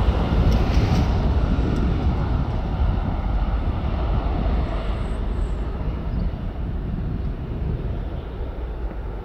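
Jet airliner's engines rumbling as it rolls along the runway, slowly fading as it moves away, with wind on the microphone.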